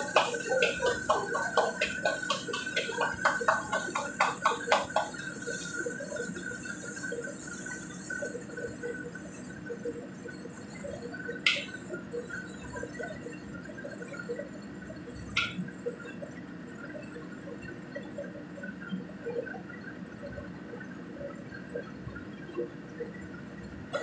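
Metal ladle clanking and scraping quickly against a large wok for about five seconds, then quieter stirring with two sharp clinks later on, over a steady kitchen hiss.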